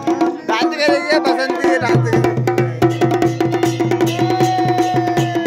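Kumaoni folk music for choliya dancing: drums beating steadily over a held drone and a wavering melody line, with a deep pulsing beat joining about two seconds in.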